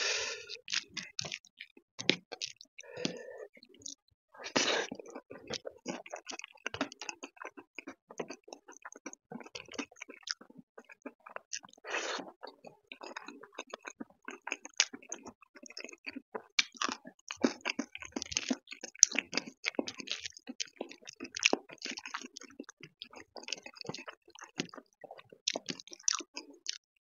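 Close-miked mouth sounds of chewing a mouthful of dal and rice: a steady run of short wet smacks and clicks, with a few louder bursts, once about four seconds in and again near twelve seconds. Fingers squelch through the wet dal and rice as they mix it.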